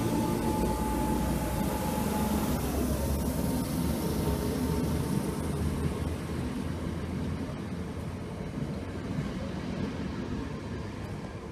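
Electric multiple unit train pulling out and running past on the track, a low rumble with a thin whine that drops in pitch about two and a half seconds in. The sound fades as the train moves away.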